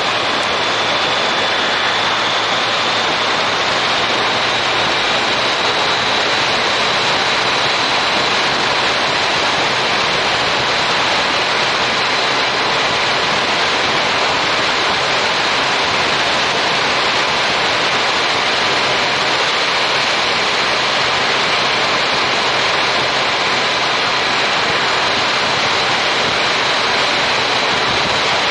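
Steady wind rush over an action camera's microphone on a moving motorcycle, a Yamaha MT-09 Tracer cruising at road speed, with the engine only a faint steady hum beneath the wind.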